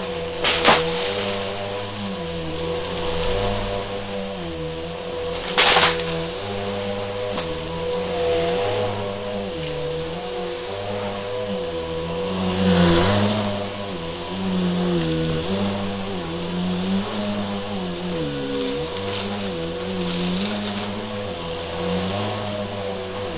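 Bissell upright vacuum cleaner running steadily with a high whine while pushed back and forth over carpet, its sound swelling and dipping with the strokes. There are brief rattling crunches as it sucks up grit and debris, the loudest about half a second in and near six seconds.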